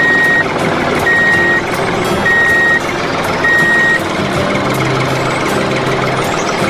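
Reversing alarm beeping four times at a steady pace, about one beep a second, then stopping about four seconds in, over a steady mechanical running noise.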